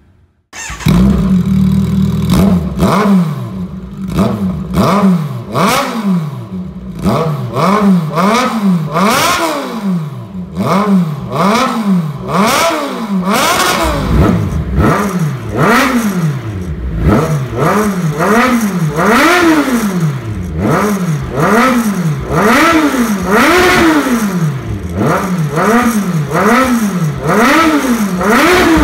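2022 Kawasaki Z1000's inline-four engine running through an aftermarket full exhaust system, stationary in neutral. After a brief steady idle it is revved over and over in quick throttle blips, the pitch rising and falling about once a second.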